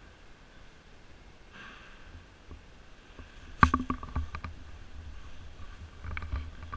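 A cluster of sharp clicks and knocks about three and a half seconds in, with a few more near the end, over a low steady rumble.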